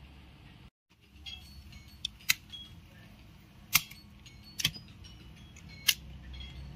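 Sharp plastic-and-metal clicks from a Fiberfox Mini 50GB+ optical fiber cleaver being handled, its clamp lids snapping open and shut: four loud clicks about a second apart with lighter ticks between.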